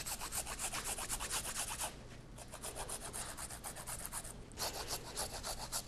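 Peeled cassava root being grated by hand on a flat handheld grater: quick rasping strokes, several a second, with a brief pause about two seconds in and a shorter one about four and a half seconds in.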